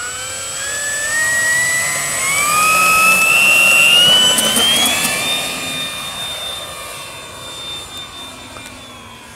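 Electric motor and propeller of a 57-inch Airfield T-28 Trojan radio-control model plane throttling up for takeoff: a whine rising in pitch over about five seconds, then holding steady and fading as the plane climbs away.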